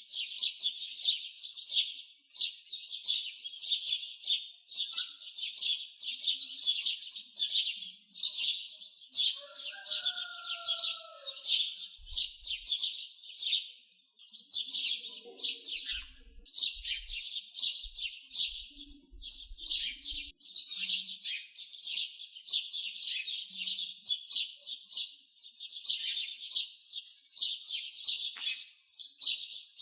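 Small birds chirping and twittering without pause in a dense run of quick, high chirps, with a brief lower call about ten seconds in.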